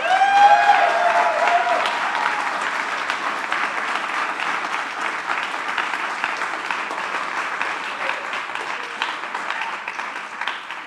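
An audience applauding: loudest in the first second or so, then steady clapping that thins out near the end.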